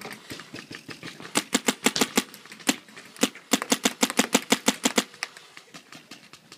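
Paintball marker firing in rapid strings of sharp pops, about seven or eight shots a second, starting about a second and a half in and stopping at about five seconds.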